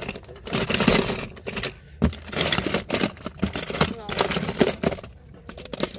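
Die-cast and plastic toy cars clattering and clicking against each other as a hand rummages through a crate full of them, in rapid runs with brief pauses.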